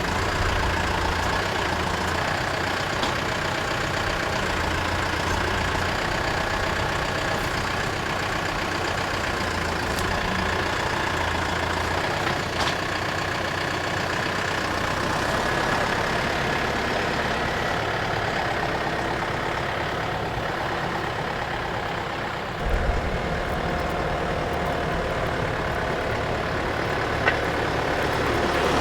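Skid-steer loader's engine running steadily while it works a stump bucket, with a brief knock late on.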